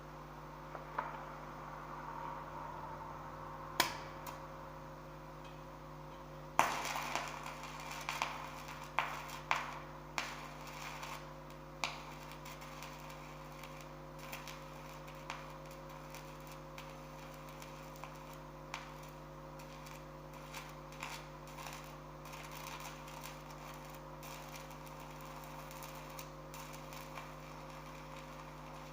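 Stick (MMA) arc welding: a steady electrical hum from the welding machine, a sharp click about four seconds in, then the arc strikes with a loud crack a couple of seconds later and crackles and pops irregularly, the pops thinning out after about twelve seconds.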